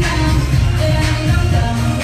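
Loud pop music with a heavy bass line and a sung vocal.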